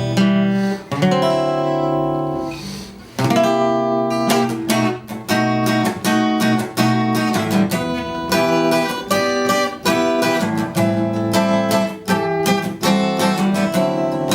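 Background music on acoustic guitar: a chord rings out and fades about a second in, then from about three seconds in a quick run of picked notes and strums goes on steadily.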